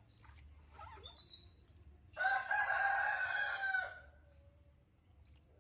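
A rooster crowing once, a little over two seconds in, for under two seconds. It is the loudest sound here. A few faint, high squeaks come before it.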